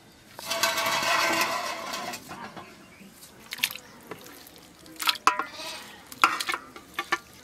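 Raw chicken pieces tipped from a steel plate into a metal bowl of water: a burst of splashing and scraping for about two seconds, then a few sharp metal clinks with brief ringing as the plate knocks against the bowl and the last pieces drop in.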